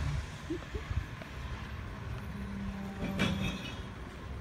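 Garbage truck's diesel engine running, a low steady hum, with a brief click about three seconds in.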